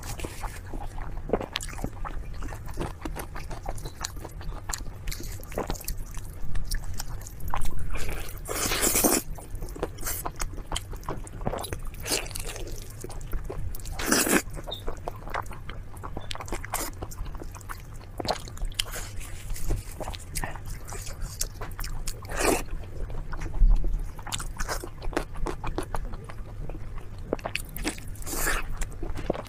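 Close-miked eating of roasted meat: steady chewing and biting with crackling crunches. Several louder bites stand out, about a third of the way in, near the middle, and again near the end, over a steady low hum.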